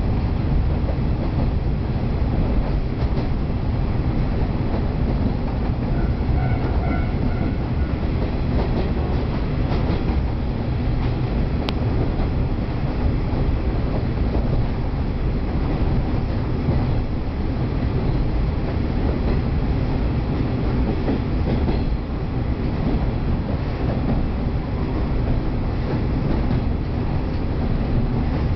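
JR East KiHa 38 diesel railcar running, heard from inside the passenger cabin. Its diesel engine and the wheels on the rails make a steady rumble.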